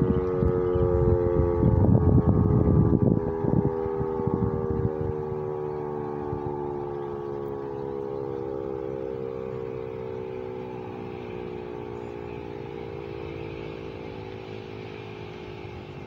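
Federal Signal Model 7 electromechanical outdoor warning siren winding down at the end of its test, its steady tone slowly falling in pitch and fading.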